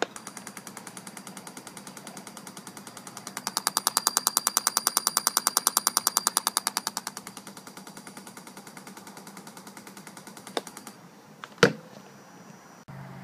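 Fast, even clicking of about eight a second from the fuel system of a JetCat P80SE kerosene-start turbine during a start attempt. It grows loudest midway, then stops, followed by a couple of sharp knocks. The turbine never starts, a failure the owner puts down to a faulty RPM sensor or its cable.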